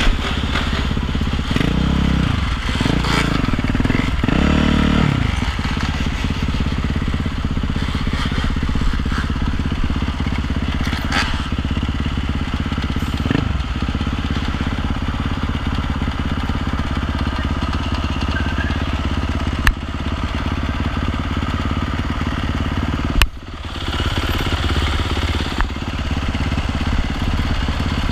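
Motorcycle engines running on a group ride, with a few rising and falling revs in the first five seconds and another about thirteen seconds in. Two sharp knocks cut through in the last third.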